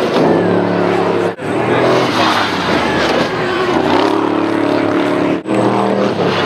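Trophy truck engines running hard at high revs, the pitch rising and falling as trucks race toward and over a dirt jump. The sound breaks off abruptly for an instant twice.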